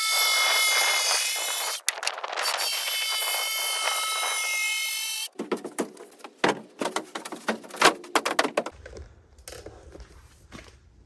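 Electric power saw cutting through a sheet of plywood: a loud, steady whine with a brief break about two seconds in, stopping abruptly about five seconds in. Then a run of irregular knocks and clatters.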